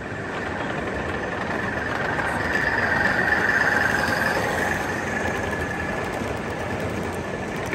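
Gauge 1 model British Rail Class 50 diesel locomotive hauling coaches past on the track, running with a steady whine that swells to its loudest as it passes about three to four seconds in, then eases.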